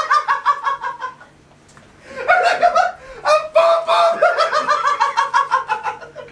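Laughter in quick, rhythmic ha-ha pulses that slide down in pitch, breaking off for about a second and then starting up again.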